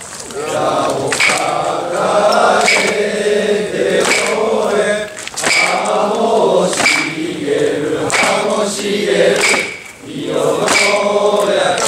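Crowd of mikoshi bearers chanting together in long drawn-out phrases, punctuated by a sharp clink about every second and a half.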